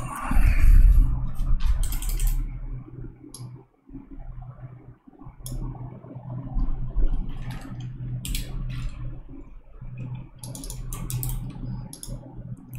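Computer keyboard keys and mouse buttons clicking in scattered short runs, over a steady low electrical hum.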